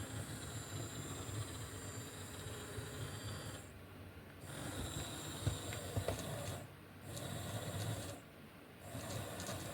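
Small electric motor and gears of a kit-built remote control car running with a steady whirring whine, cutting out briefly three times as it is switched off and on.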